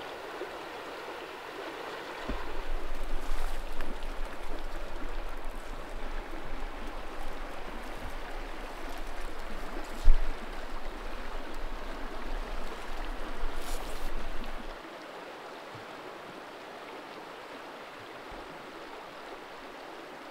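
A river flowing with a steady rushing sound. From about two seconds in until near fifteen seconds, a low rumble sits under it, with a single thump about ten seconds in.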